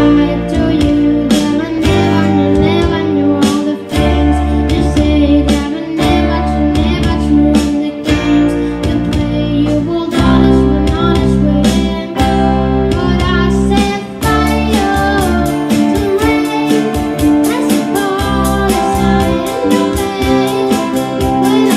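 School ensemble playing a pop song live: children singing over guitar, bass and a steady beat. The sharp hits grow busier about two-thirds of the way through.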